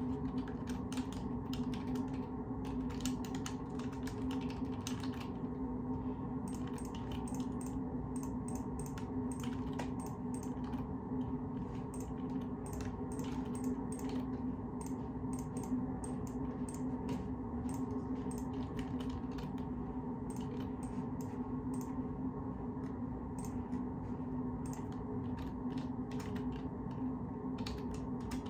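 Typing on a computer keyboard: irregular runs of keystroke clicks, with short pauses, over a steady low hum.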